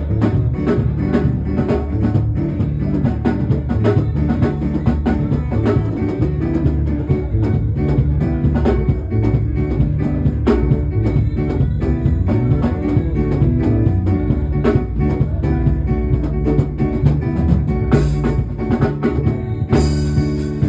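Instrumental music with a drum kit keeping a steady beat over bass and guitar, with no singing.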